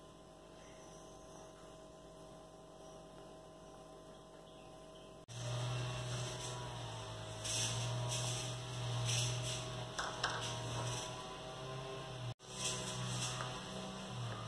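Steady low electrical hum that comes in about five seconds in, with light rustling bursts as chopped onion and other toppings are scattered by hand onto the pizza base.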